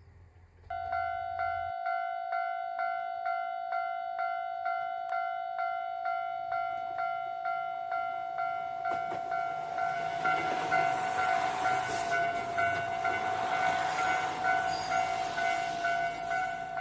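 Japanese railway level-crossing warning bell sounding a steady repeating ding-ding at about two strokes a second, starting suddenly about a second in. From about halfway through, the rushing noise of a train approaching and passing builds up under the bell.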